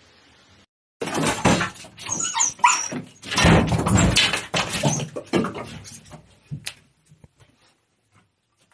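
A dog vocalizing loudly in a dense, broken run of cries with wavering pitch, starting about a second in and stopping near the end, after which only a few faint clicks remain.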